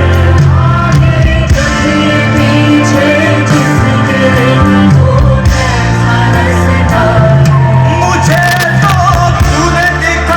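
A band playing live with a lead vocalist singing, loud and continuous, with bass and drums under the voice.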